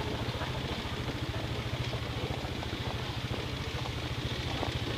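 Motor scooter engine idling steadily, a low even hum.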